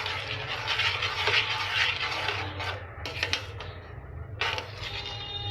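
A spoon stirring milk vermicelli in a metal kadhai, scraping against the pan in repeated strokes for about three seconds, then a couple of light clicks before it stops.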